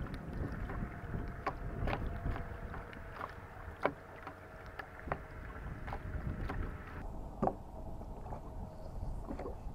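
Sounds aboard a bass fishing boat: scattered clicks and knocks over a low rumble of wind and water, with a faint steady hum that stops about seven seconds in.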